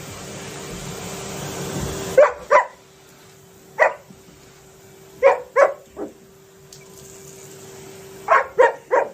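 A dog barking in short groups: about nine sharp barks in all, two, then one, then three, then three, with pauses between.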